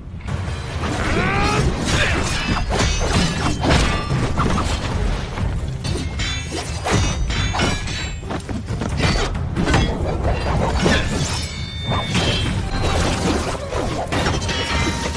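Animated fight sound effects over music: a rapid run of sharp blade strikes and heavy impacts that breaks in suddenly and keeps going.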